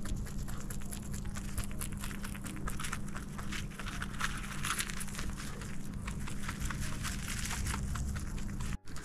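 A Netherland Dwarf rabbit chewing hay close up: a fast, continuous run of small crisp crunches, over a steady low hum.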